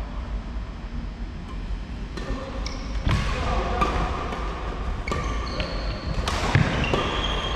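Badminton rally: rackets striking the shuttlecock in sharp cracks, several from about two seconds in, with short high squeaks of court shoes on the wooden floor, over a steady low hum of the hall.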